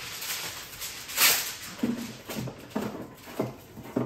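Heavy-duty aluminum foil pulled off the roll in its box and torn off, with a loud rip about a second in, then a run of crinkles and knocks as the sheet is handled.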